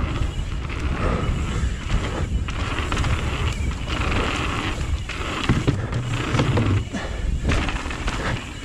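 Mountain bike rolling down a dirt trail, its tyres and frame rattling over the ground, with a steady low wind rumble on the microphone.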